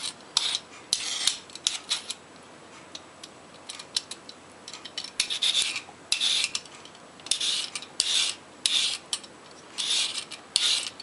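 A Y-shaped vegetable peeler scraping strips off raw carrots. Repeated short, hissy scraping strokes, often a few in quick succession, with brief pauses between the runs.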